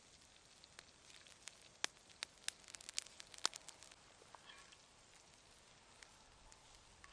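Wood fire crackling under grilling meat: a run of sharp pops and snaps bunched in the middle, over a faint steady hiss.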